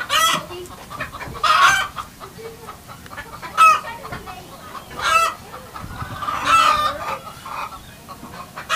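Chickens calling in a coop: a string of short, sharp clucks and squawks every second or two, with one longer call about six and a half seconds in.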